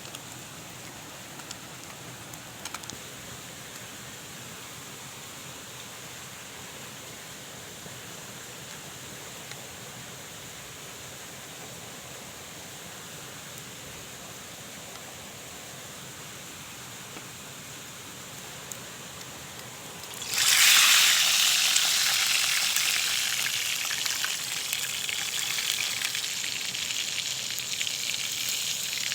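A steady faint hiss, then about twenty seconds in food goes into hot oil: a sudden loud sizzle that eases a little and keeps on frying.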